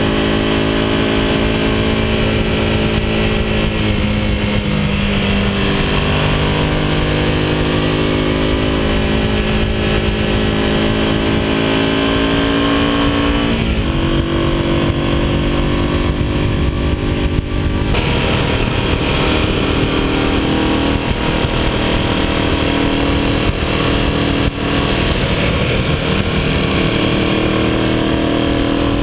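Vintage motorcycle engine running under way, heard from on board, its pitch rising and falling several times, over steady wind noise.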